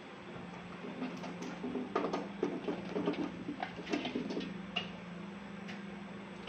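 Chunks of bar soap tumbling from a metal bowl into a soap machine's metal hopper, a quick run of knocks and clatter in the middle, over a steady low hum.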